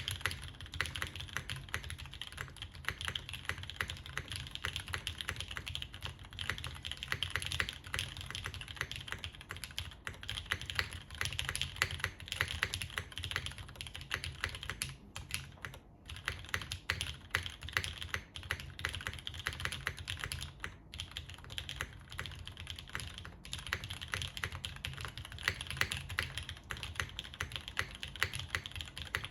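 Fast, continuous typing on a JTD Ovinnik TKL mechanical keyboard with Gateron Ink switches on an aluminium plate and GMK keycaps, the key strokes running together with brief pauses about 16 and 21 seconds in.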